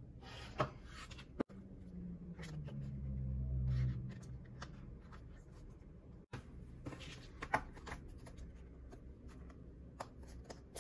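Stiff card packaging for an Apple Watch sport band being unfolded and handled: scattered soft rustles and light clicks of card, with a low hum that swells for about two seconds, a couple of seconds in.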